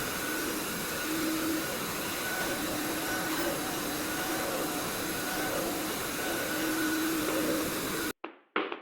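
Xiaomi window-cleaning robot's suction fan running with a steady hiss. It cuts off abruptly near the end, followed by a couple of sharp knocks.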